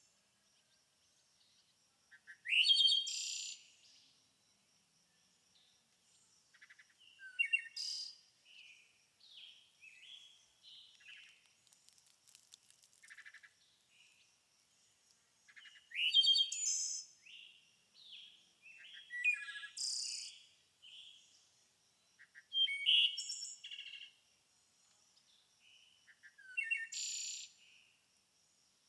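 Birds chirping and twittering in short bursts every few seconds, over a faint steady high-pitched tone.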